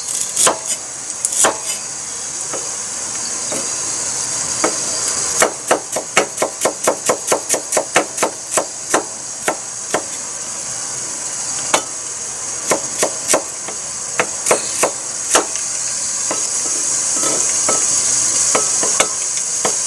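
Kitchen knife chopping ginger on a wooden cutting board: scattered chops at first, a quick run of about four a second from about five seconds in, then slower, scattered strokes, over a steady hiss.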